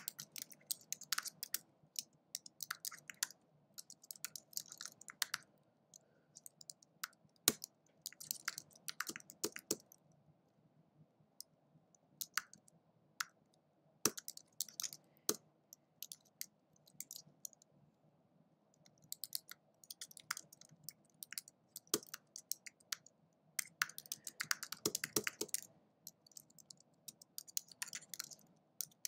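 Typing on a computer keyboard: runs of quick key clicks in bursts, broken by short pauses.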